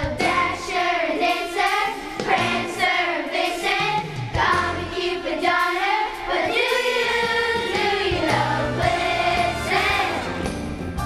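Children's choir singing a Christmas song over instrumental accompaniment, with some long held notes.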